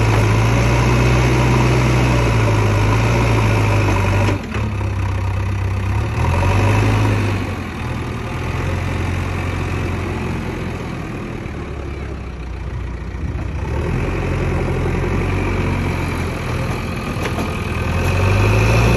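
JCB 3DX Xtra backhoe loader's diesel engine running under load as the front loader bucket digs into and lifts soil. It runs loud for the first four seconds, eases off through the middle and picks up again near the end.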